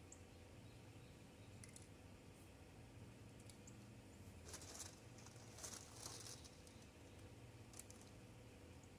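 Near silence with a faint steady low hum. Two short, faint hisses come just after the middle, and there are a few light clicks.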